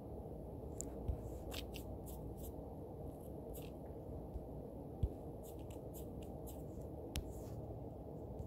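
Faint taps and short scratchy strokes on a phone's touchscreen while drawing, over a steady low hum, with soft knocks about a second in, at about five seconds and at about seven seconds.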